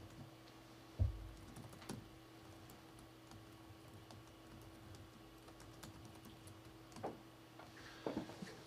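Faint computer keyboard typing: scattered key clicks, with a low thump about a second in and a quick run of keystrokes near the end, over a steady hum.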